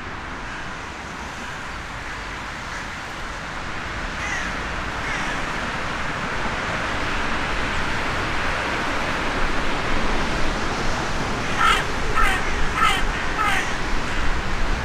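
Hooded crow cawing: two faint caws about four seconds in, then four loud caws in quick succession near the end, over a steady background hiss that slowly grows louder.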